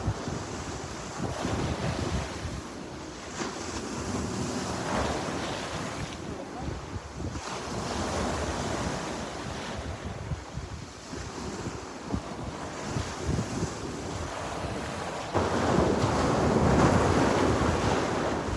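Sea waves washing and breaking on the shore in a continuous surge and ebb, with a bigger wave rushing in about 15 seconds in and running loudest near the end.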